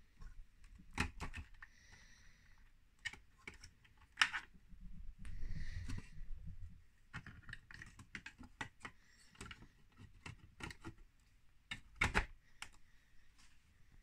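Irregular light clicks and knocks of hard plastic parts being handled, as the battery wiring is tucked in and the engine hood is fitted onto a 3D-printed RC bulldozer model, with a couple of short rustles.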